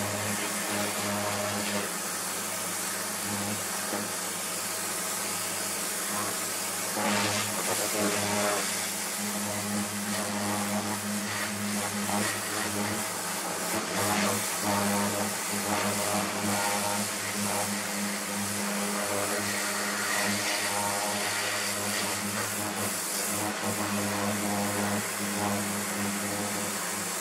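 Kärcher pressure washer running: its motor hums steadily while the jet from the lance hisses onto a plastic sun lounger, the spray noise swelling and fading as the jet moves across the slats.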